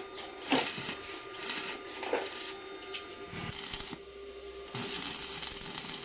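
Two sharp knocks about a second and a half apart over a steady hum.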